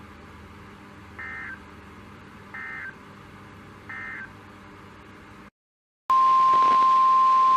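Three short Emergency Alert System digital data bursts about a second and a half apart, each a brief warbling squawk: the end-of-message code from a NOAA Weather Radio transmission. After a brief dropout, the loud, steady single-pitch NOAA Weather Radio warning alarm tone begins about six seconds in.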